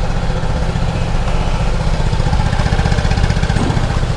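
Motor scooter engine idling steadily up close, a fast even low pulse.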